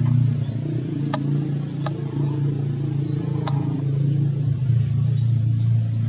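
A steady low engine drone, with faint high-pitched bird chirps over it and three sharp clicks in the first few seconds.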